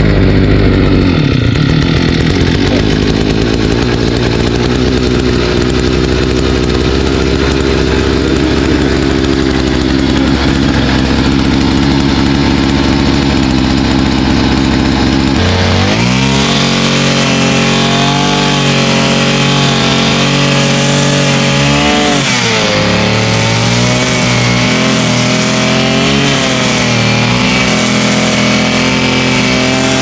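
Small petrol engine of a brush cutter running steadily while cutting tall grass. About halfway through it speeds up to a higher, steady pitch, then dips and wavers up and down near the end.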